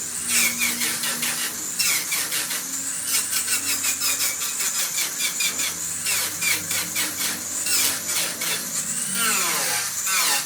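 Mini angle grinder cutting and shaping wood, a steady high hiss broken by a rapid scraping rhythm as the disc bites into the bowl blank.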